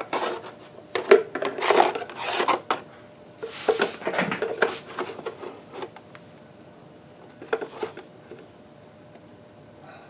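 Irregular scraping and rubbing as grease and metal chips are dug out of the Atlas horizontal milling machine's grease-packed transmission. The strokes come thick for the first several seconds, then thin out, with a couple more near the end.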